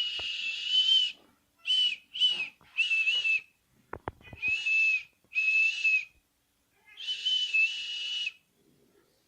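A person whistling through the lips to call a cat: seven breathy whistles at a steady pitch, the first and the last each held about a second and the ones between them shorter.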